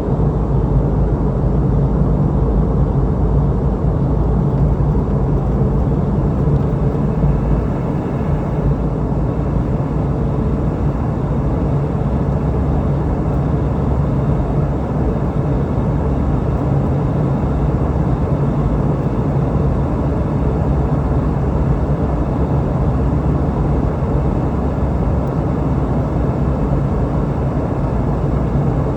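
Steady in-flight cabin noise of a Boeing 717-200: a constant drone from its two rear-mounted Rolls-Royce BR715 turbofans mixed with the rush of airflow past the fuselage, easing off slightly about eight seconds in.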